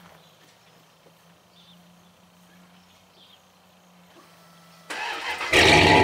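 Quiet for most of the stretch, then near the end a 1996 Dodge Ram 2500's 5.9-litre engine cranks for about half a second and starts. It then runs loud through a Thrush Welded muffler and tip.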